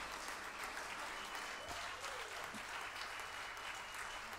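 Audience applauding, with a couple of long, steady, high whistles over the clapping.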